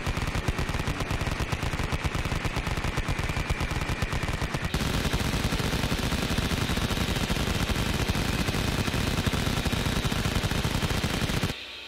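Minigun sound effect: one long continuous burst of very rapid fire that merges into a buzz. Its tone steps higher about five seconds in, and it cuts off abruptly near the end.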